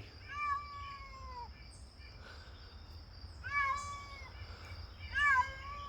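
A domestic cat stuck high up a tree meowing three times: a long call that falls in pitch, then two short ones near the end.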